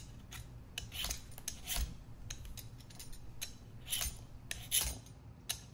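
Vegetable peeler scraping strips of skin off a raw butternut squash in short, quick strokes, about two a second.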